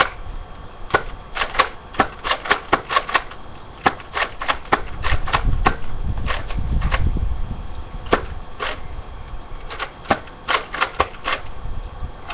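Nerf Elite Retaliator spring-powered dart blaster being primed and fired again and again: a series of about two dozen sharp plastic clacks and pops, often in quick pairs, with a low rumble in the middle.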